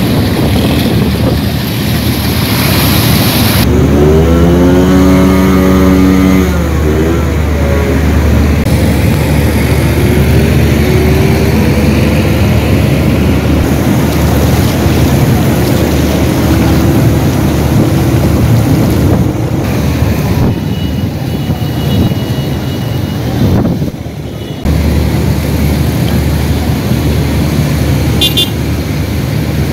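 Traffic noise on a flooded road: motorcycles, auto-rickshaws and cars running through standing water under a steady low drone, with one engine passing close about four to six seconds in, its pitch dropping as it goes.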